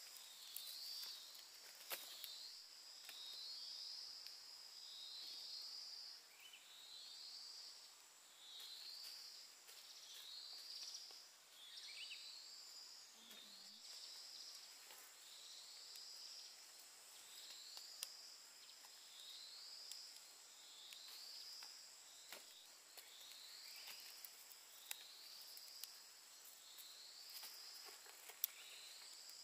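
Faint countryside ambience of calling insects: a steady high-pitched whine, over which a short high trilled chirp repeats about every second and a half, with a few faint clicks.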